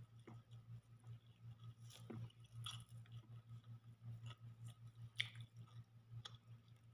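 Faint chewing and wet mouth smacks from a person eating rice and fried chicken by hand, with scattered short clicks, over a steady low hum.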